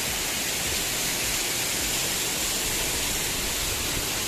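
Small waterfall's water rushing and splashing over large rocks, a steady, even rush with no breaks.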